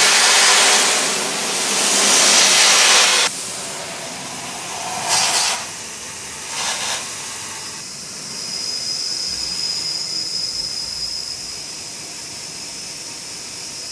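Simoniz handheld power washer spraying a water jet onto a concrete garage floor, a loud steady hiss that cuts off suddenly about three seconds in, followed by two short squirts a second or so apart. Its pressure is too low to lift the grime off the floor.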